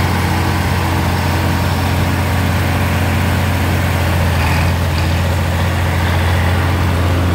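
Farmall tractor's diesel engine running steadily with a constant low hum, driving forage machinery that is blowing chopped oatlage.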